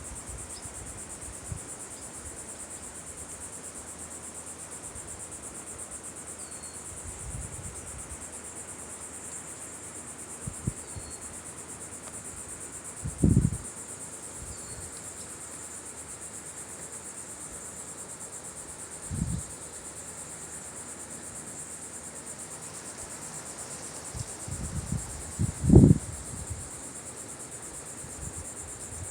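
Steady high-pitched chorus of insects such as crickets, running throughout, with a few faint short chirps above it. A few brief low thumps break in, the loudest near the end.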